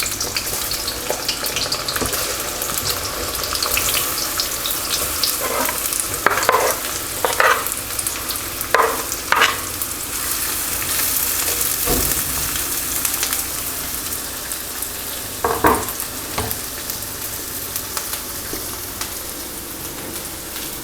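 Chopped onions sizzling steadily in hot oil in a pan as they start to fry, stirred with a utensil that scrapes and taps against the pan a few times, mostly in the middle and again later on.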